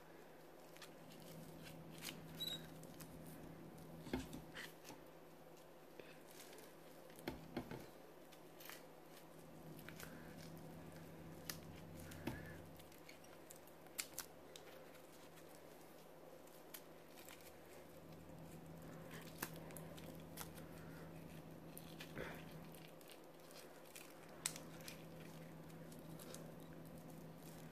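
Faint handling noises as a rubber balloon is squeezed and knotted: scattered soft clicks and rubbing over a steady low hum.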